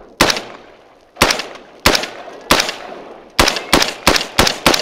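About ten shots from an AR-15-style semi-automatic rifle, each a sharp crack with a short tail. The first few come about a second apart, then the fire quickens to roughly three shots a second near the end.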